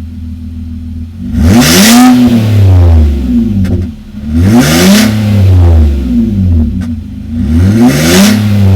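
Car engine free-revved in neutral through an aftermarket BE FREE center pipe exhaust: it idles, then the throttle is blipped three times about three seconds apart, each rev rising and dropping back to idle.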